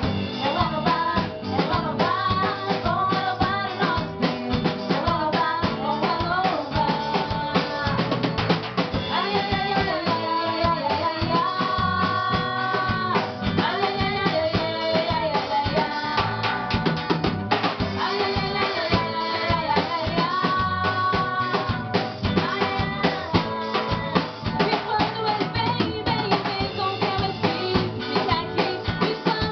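A band playing carnival music: drum kit with snare and bass drum keeping a brisk, even beat under a melody line.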